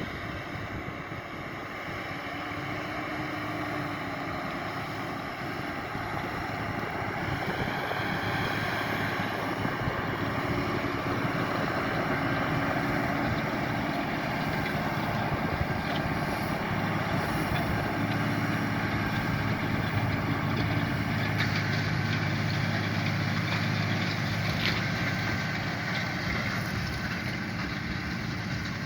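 Large farm tractor's diesel engine running steadily under load while pulling a plough, growing louder over the first several seconds.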